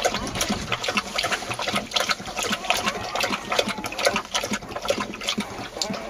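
Kangal dog lapping and slurping warm mash from a bowl in quick, irregular wet laps, several a second.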